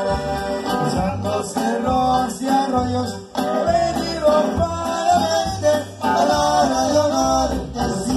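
Live norteño band playing: accordion melody over acoustic guitar, bass and drums with a steady beat.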